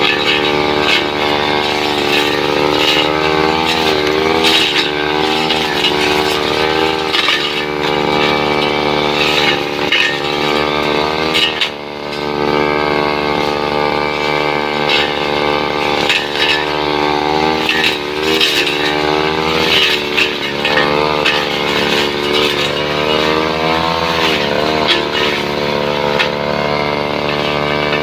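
Two-stroke brush cutter engine running at high revs with its blade cutting into wood. The pitch sags and recovers several times under the load, with a brief dip about twelve seconds in.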